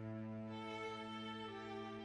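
Slow, sad music on bowed strings: long held notes, a chord changing about one and a half seconds in.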